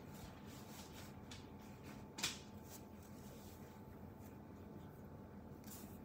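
Quiet room tone with a faint steady hum and light rustling, broken by one sharp click a little over two seconds in.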